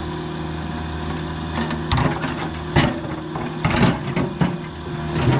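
Mini excavator's diesel engine running steadily, with several sharp knocks from the machine working at about two, three, four and five seconds in.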